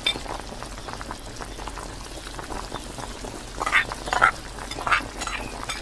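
Lamb, carrot and rice pilaf simmering in a large pot, with a steady bubbling crackle. A few brief louder sounds come about four to five seconds in, as raisins are tipped in from a bowl.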